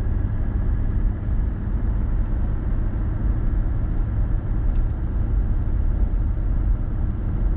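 Toyota LandCruiser 70 Series driving at low town speed, a steady low engine drone with tyre and road noise.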